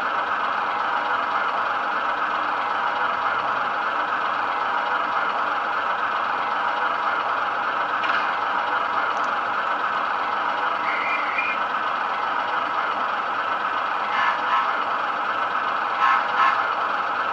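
Sound decoder in a model class 105 diesel multiple unit playing the engine idling through the model's small speaker, a steady thin running sound without deep bass. A few short clicks come near the end.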